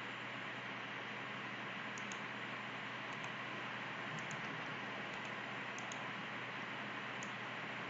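Steady microphone hiss with faint computer mouse clicks, some in quick pairs, scattered every second or so.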